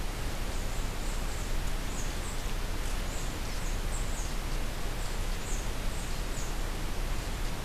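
Steady hiss from an Amcrest ATC-1201G trail camera's microphone, with faint, high-pitched chirps from a small bird repeating through most of it.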